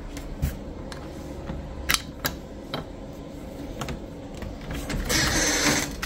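Clicks and knocks of a red plastic-and-metal portable door lock being handled and taken off a door. A short scraping rustle comes near the end.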